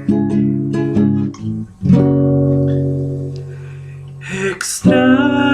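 Acoustic guitar playing chords between sung lines: quick strums, then a chord struck about two seconds in that rings and slowly fades. A short breathy hiss comes just before the strumming picks up again near the end.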